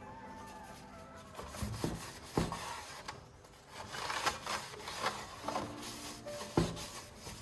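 Rubbing or scraping on a hard surface in irregular strokes, with a few sharp knocks, the loudest about six and a half seconds in. Faint background music runs underneath.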